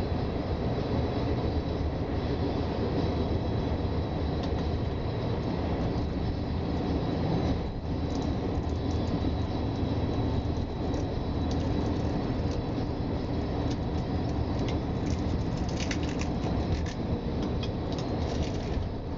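Ferrovie Nord commuter train running at speed, heard from inside the carriage: a steady rumble of wheels on rail. A cluster of sharp clicks and rattles comes about three-quarters of the way through.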